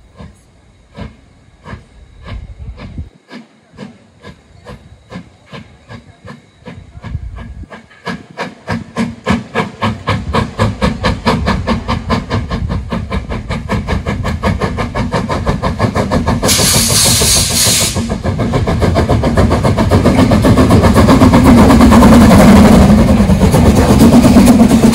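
Narrow-gauge steam locomotive pulling away: its exhaust chuffs start at about two a second and quicken and grow louder until they run together. About two-thirds of the way in there is a burst of hissing steam lasting a second or two.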